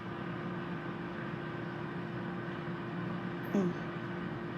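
Steady hum of a running appliance motor, one held low tone over a light hiss, with a single short knock about three and a half seconds in.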